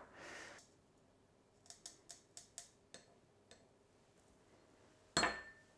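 Fresh thyme sprigs being pulled through the holes of a stainless-steel rasp zester to strip the leaves: a quick run of small sharp clicks and scrapes. About five seconds in comes a single sharp clink with a short ring.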